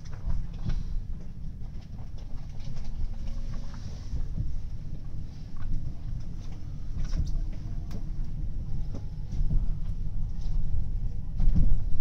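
A train's running noise heard from inside the car as it pulls out of a station and gathers speed: a low rumble with scattered clicks and knocks from the wheels and car body, and a few faint drawn-out tones from the drive. It grows a little louder near the end.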